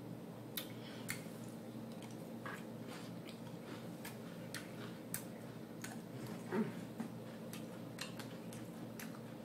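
Eating salad: a plastic fork clicking and scraping in a clear plastic takeout container, with chewing, as scattered light clicks over a steady low background hum.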